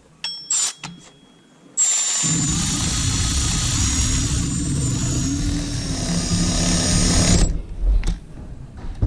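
Cordless power tool driving in the bolt of a newly fitted serpentine belt tensioner/idler pulley: two quick trigger blips, then one steady run with a high whine from about 2 s in that cuts off sharply after roughly five and a half seconds.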